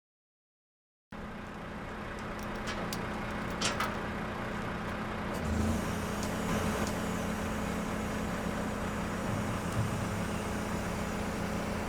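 Engine running steadily with a low hum, starting about a second in, with a few light clicks and knocks over it.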